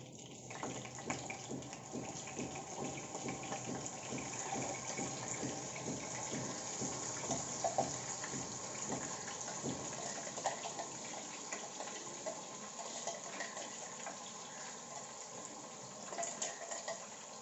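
Hot oil in a nonstick wok sizzling steadily as a ground masala paste is scraped in from a mixer-grinder jar, with scattered crackles and a few sharp taps of the jar and spoon.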